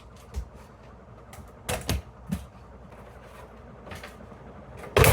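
Objects being hit by the blades of a running industrial ceiling fan: a handful of sharp, irregular clacks and knocks, then a loud hit right at the end.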